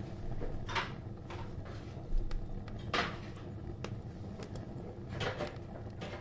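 Wire whisk scraping and clicking in a plastic bowl, mixing gram flour with water into batter: three louder scrapes about two seconds apart, with light clicks between.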